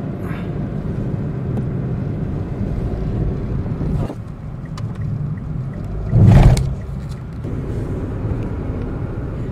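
Steady road and engine rumble heard inside a moving car, with a brief loud rush of noise about six seconds in.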